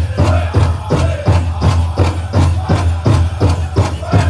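Powwow drum group: a big drum struck in a steady beat of about three strokes a second, with singers chanting over it and a jingling rattle from the dancers' bells.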